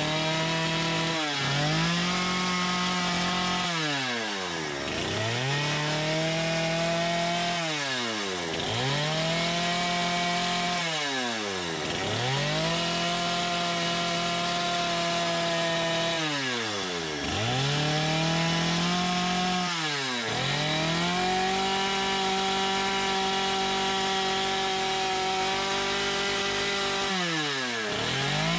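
Stihl two-stroke chainsaw cutting into a small block of wood. The throttle is squeezed so the engine climbs to a steady high pitch for a few seconds, then released so it drops back, about seven times over.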